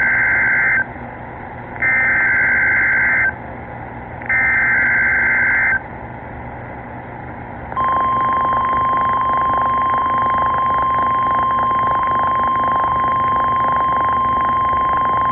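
Emergency Alert System tones on NOAA Weather Radio: three data bursts of the SAME digital header, each about a second and a half long with a second's gap between them, then the steady single-pitch 1050 Hz warning alarm tone starting about eight seconds in. Static hisses underneath. The alert heralds a severe thunderstorm warning.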